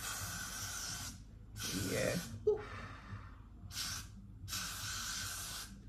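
Aerosol can of Got2b Glued spray misting a wig cap in four hisses: one of about a second, a shorter one, a brief one, then a longer one near the end.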